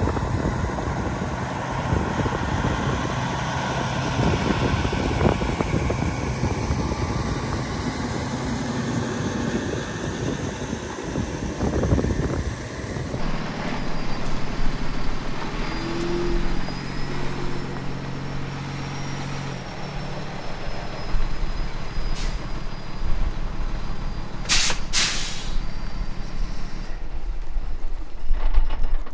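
Diesel engine of a day-cab semi truck running as it pulls in and stops. A loud hiss of air from its brakes comes about three-quarters of the way through.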